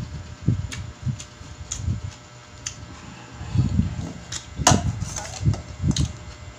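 Close-up chewing and mouth sounds of someone eating, irregular soft low thuds with a few sharp clicks or smacks, the loudest a little under five seconds in.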